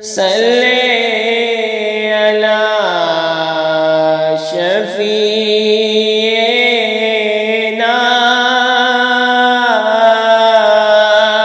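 Background vocal music: a single voice chanting long held notes that slide slowly down and back up, over a steady low drone.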